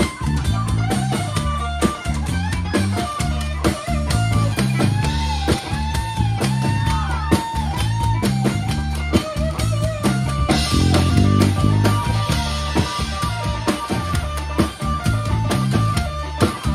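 Rock band playing loud and live with no vocals: electric guitars, bass guitar and a drum kit, with a lead line that swoops up and down repeatedly near the middle.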